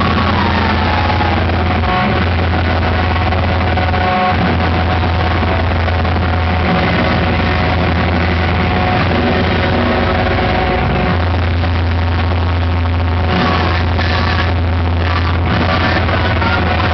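Loud live noise-rock band playing a dense, distorted wall of sound over a steady low drone.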